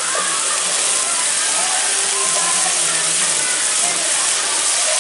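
Eel pieces in green chili sambal sizzling steadily in an aluminium wok over a gas flame, a continuous frying hiss.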